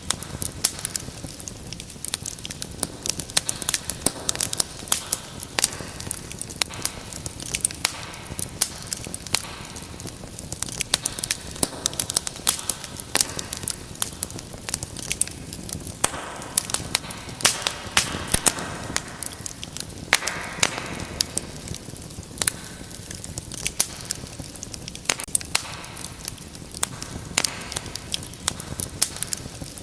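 Wood fire crackling: frequent sharp pops and snaps over a steady hiss of burning.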